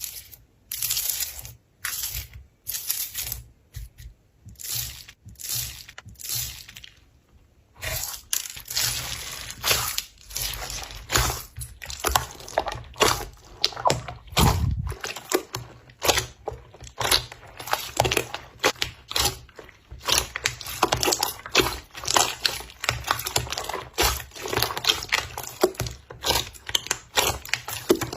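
Slime being squeezed and played with by hand: short squishing sounds about once a second at first, then coming fast and close together from about eight seconds in.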